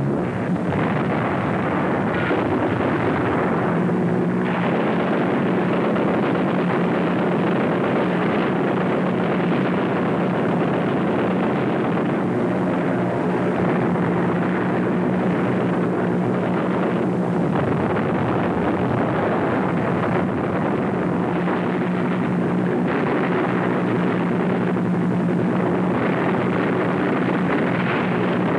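Engines droning steadily over a dense rumbling noise, their pitch shifting a little now and then.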